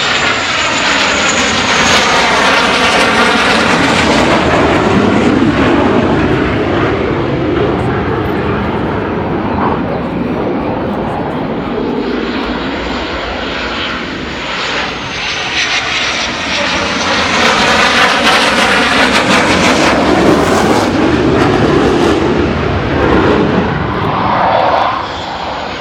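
Blue Angels F/A-18 jets coming in to land one after another: loud jet engine noise swells and fades as each passes, twice in succession, with a high turbine whine that drops in pitch as each jet goes by.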